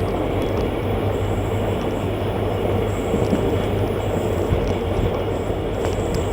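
Passenger train running along the track: a steady rumble with a few short clicks from the wheels.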